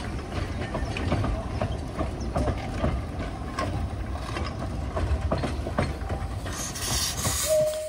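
Narrow-gauge train of wooden carriages rolling slowly past, with a steady rumble and irregular clicks and clanks from the wheels on the rails. Near the end, as the green saddle-tank steam locomotive comes level, there is a burst of steam hiss and a brief high tone.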